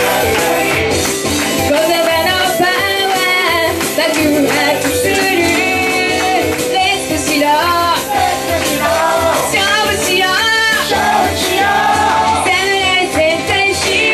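Woman singing live into a microphone over upbeat pop backing music.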